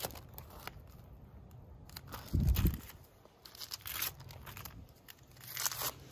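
Plastic packaging crinkling and rustling as stencil sleeves are handled and shuffled, in scattered short bursts, with a denser crinkle near the end. A brief low thump about two and a half seconds in.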